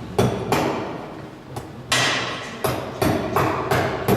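Hammer driving a nail into an LVL timber beam to fix a beam clamp in place: about eight sharp blows at an uneven pace, each with a short ring after it.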